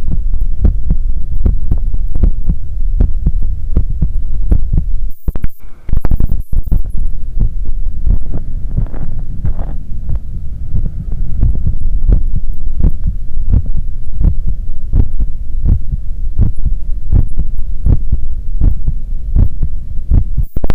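Heartbeat heard through a stethoscope on the chest: steady, evenly spaced low thumps. There is a brief dropout and rustle about five seconds in, and a faint breath hiss under the beats a few seconds later.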